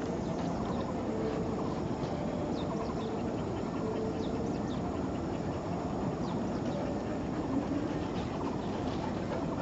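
Steady low rumble of distant city traffic heard across a valley, with a faint engine-like hum in it. Short, high bird chirps come through every so often.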